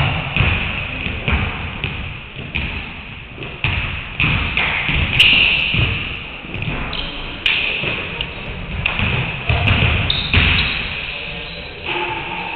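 Basketballs bouncing and thudding on a hardwood gym floor, a string of sharp impacts every half second or so that echo around a large hall, with players' voices calling out now and then.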